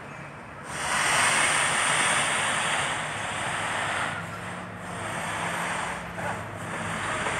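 A mobile crane's diesel engine runs steadily under load while it hoists a road roller. A loud rushing hiss swells in about a second in and continues over it.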